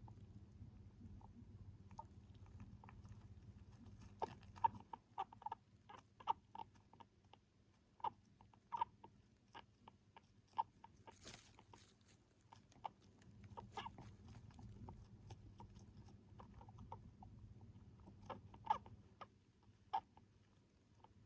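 Faint, irregular little clicks from an elderly male hamster's breathing, a breathing sound the owner finds abnormal, over a low steady hum.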